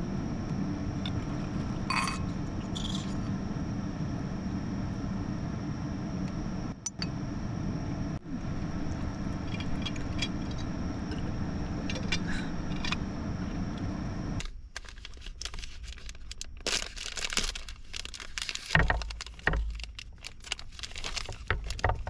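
Ceramic bowls and chopsticks clinking during a meal, over a steady low hum. About fourteen seconds in, the hum stops and a paper wrapper crinkles and rustles as small round sweets are tipped out onto a wooden plate, with a few soft knocks.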